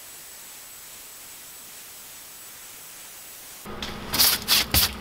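CNC router spindle running steadily with a faint high whine while a fine end mill cuts. About three and a half seconds in, a stiff brush sweeps chips and dust off the freshly cut fingerboards in several quick, loud scrubbing strokes.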